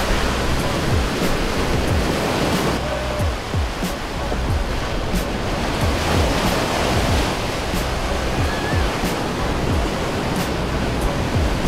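Ocean surf breaking and washing in a steady rush, with background music underneath.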